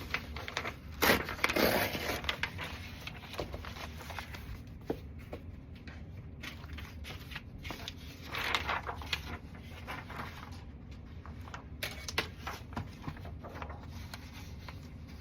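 Sheets of paper rustling and crinkling as they are handled and shuffled. There is a louder rustle about a second in and another about eight seconds in, with scattered light taps and clicks.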